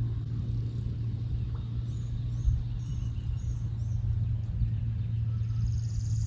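Steady low hum and rumble of outdoor background noise, with faint short high chirps of birds scattered through it.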